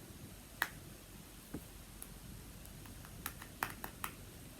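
Scattered light clicks and taps from handling a phone and a pop socket: about seven sharp ticks, one a little under a second in and a cluster near the end.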